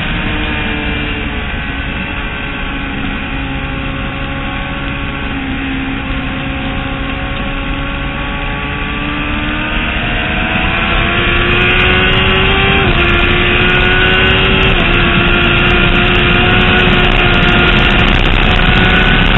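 Motorcycle engine recorded on board at track speed: the engine note falls off into a corner, then climbs steadily under acceleration, with two upshifts about two-thirds of the way through, after which it runs on steadily.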